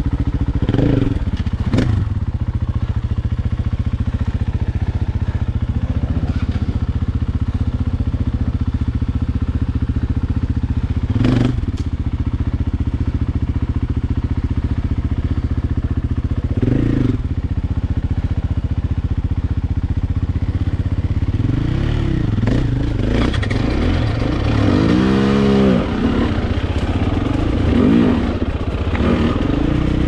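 Dirt bike engine running steadily at low revs, with a few sharp knocks. From about two-thirds of the way through it is revved up and down repeatedly, with one quick rise and fall near the end.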